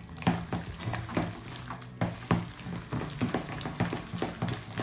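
A hand squishing and kneading wet raw chicken mince mixture in a bowl: repeated wet squelches, about four a second.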